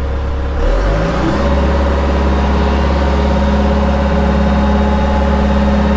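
Excavator's diesel engine and hydraulics, rising in pitch about a second in and then running steady, as the machine works its arm to hook the quick coupler onto a bucket.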